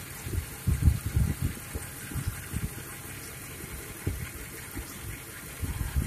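1993 Jeep Grand Cherokee engine running at idle, with irregular low thumps and rumbles over it, loudest about a second in and near the end.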